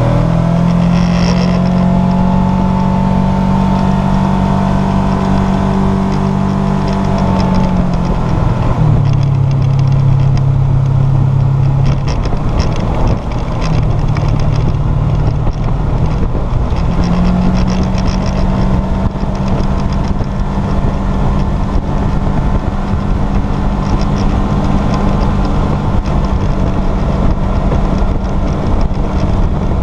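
A vehicle engine running while driving, over a constant wash of wind and road noise. Its pitch climbs at the start and holds steady, drops lower about eight seconds in, and rises again around seventeen seconds.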